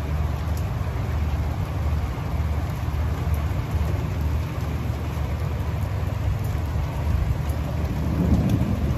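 Steady rain with a low rumble of thunder underneath; the rumble swells near the end.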